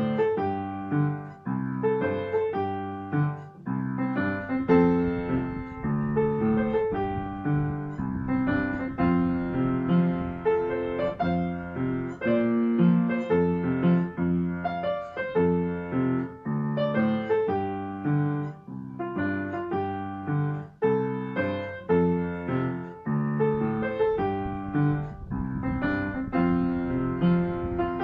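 Background piano music: a steady melody of struck notes with chords beneath.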